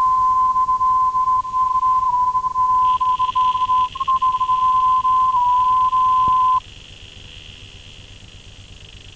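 Steady line-up test tone played with colour bars at the head of a videotape, its pitch wobbling slightly a few times. It cuts off suddenly about six and a half seconds in, leaving low tape hiss.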